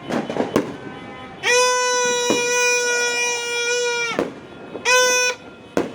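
A horn blown in New Year celebration: one long steady blast of about two and a half seconds, then a short second blast, with a few sharp firecracker pops around it.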